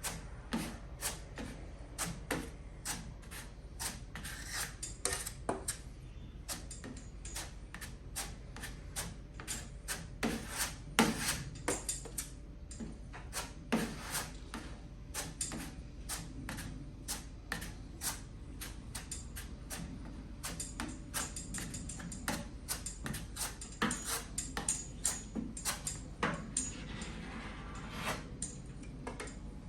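Plastic body-filler spreader scraping and clicking against the tailgate's sheet metal as filler is pressed in and spread out, in many irregular short strokes.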